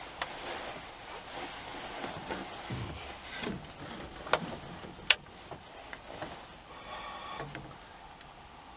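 Rustling and handling noise with scattered clicks and knocks, the sharpest one about five seconds in.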